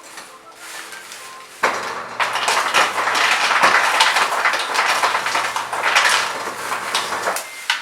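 Refrigerator ice dispenser running for about six seconds, its motor humming steadily as ice cubes clatter into a cup; it starts about a second and a half in and cuts off near the end.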